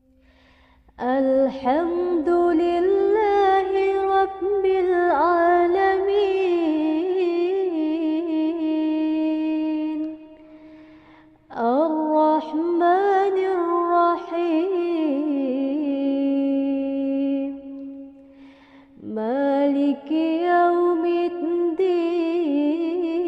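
A solo voice chanting Quranic recitation in a slow, ornamented melodic style, in three long phrases of held, wavering notes with short breaks between them.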